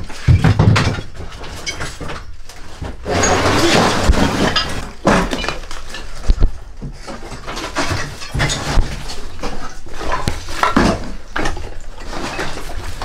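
Irregular knocks and clatter of building rubble, with several louder bangs.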